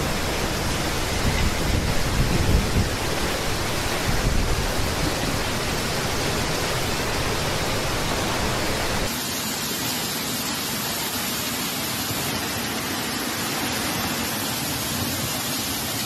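Heavy rain and strong wind gusts, as a continuous loud rushing hiss, with the gusts rumbling on the microphone. About nine seconds in the sound cuts to a steadier rain hiss with less rumble.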